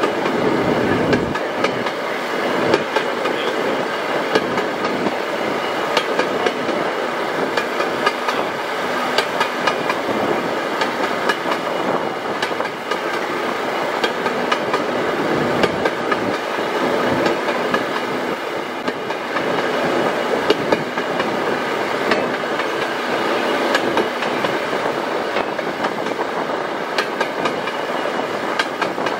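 Motor draisine running along narrow-gauge track, heard from aboard: its engine runs steadily and the wheels click and clatter over the rail joints.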